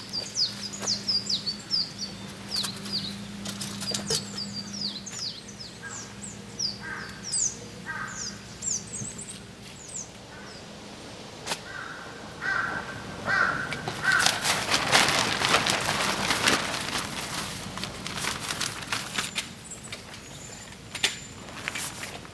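Birds calling: a small bird's rapid, high chirps through the first half, and a crow cawing a few times near the middle. About two-thirds through, a hiss swells for several seconds, with scattered light clicks.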